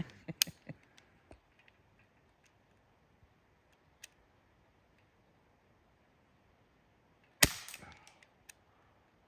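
BB gun firing: a sharp crack about half a second in, then a second, louder shot about seven and a half seconds in that trails off briefly.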